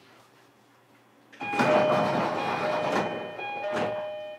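Door chime and sliding passenger doors of a JR Kyushu 305 series electric train. About a second and a half in, a two-note high-low chime repeats about three times over the rush and knocks of the doors moving; it cuts off suddenly.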